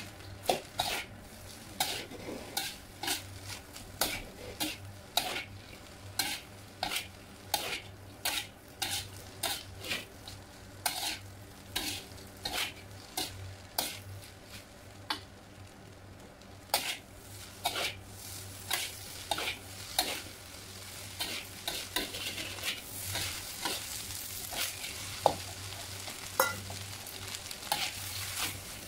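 Metal spatula scraping and knocking against a wok as fried rice is stir-fried, about one or two strikes a second, over a steady sizzle that grows louder near the end.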